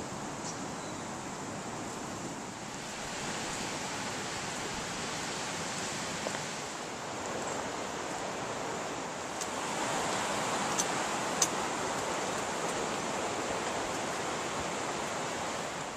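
A steady rushing noise, a little louder in the second half, with a few sharp clicks about eleven seconds in.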